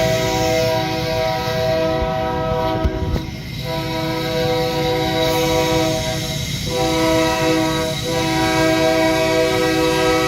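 Union Pacific freight locomotive's Nathan K3LA three-chime air horn blowing long held blasts, broken by short gaps about three seconds and six and a half seconds in, over the low rumble of the moving train.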